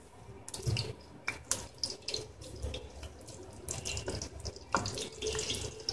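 Whole green cardamom pods sizzling in hot ghee in a steel kadai, with irregular crackles and pops, while a plastic ladle stirs them and now and then knocks against the pan.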